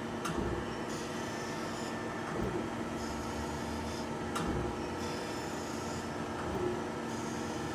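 Chevalier FSG-1228AD hydraulic surface grinder running in automatic mode: a steady hum from the spindle and hydraulics, with a hiss as the wheel grinds a vise jaw on each table pass and a short knock as the table reverses, about every two seconds.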